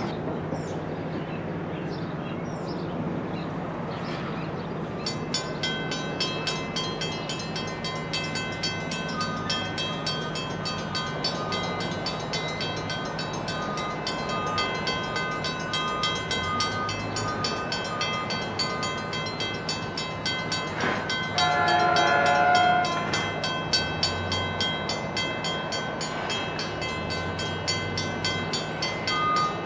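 A departing train rumbles away at first. From about five seconds in, steady multi-tone ringing with a fast regular beat sets in, typical of grade-crossing warning bells activating for a train on approach. About 21 seconds in, the approaching train sounds one chord horn blast lasting about a second and a half.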